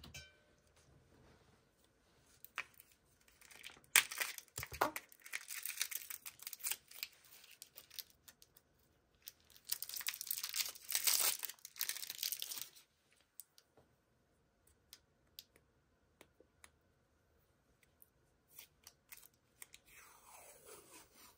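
Washi tape being pulled off its roll and torn, in two rasping bouts about four seconds and ten seconds in, followed by faint scattered ticks and crinkles.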